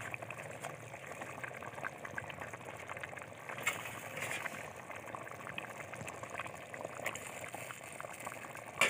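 Pot of rice in spiced water at a rolling boil: a steady bubbling and crackling of the boiling liquid, with a couple of louder plops, one about a third of the way in and one near the end.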